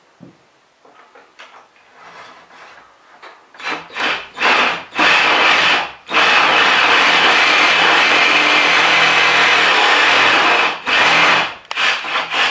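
Reciprocating saw cutting through the inch-thick boards of a wooden door: three short bursts, then a steady cut of about five seconds, then a couple of short bursts near the end.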